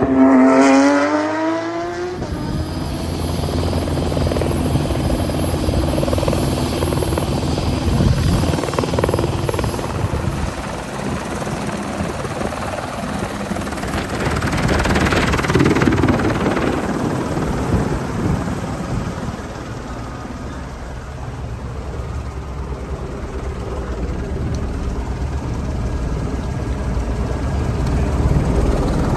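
A race car passes at speed, its engine note falling in pitch over the first two seconds. The rest is a helicopter running steadily.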